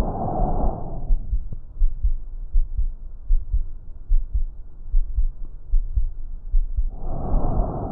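Breath sounds heard through a stethoscope: a breath ends about a second in, then the heartbeat thumps on its own about one and a half times a second until the next breath begins near the end.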